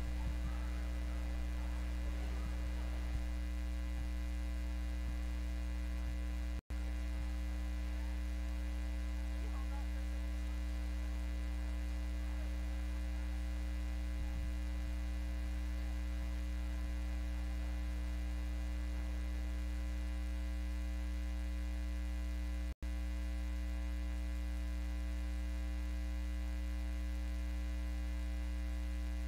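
Steady electrical mains hum in the audio feed, a low buzz with several evenly spaced overtones, cutting out for an instant twice.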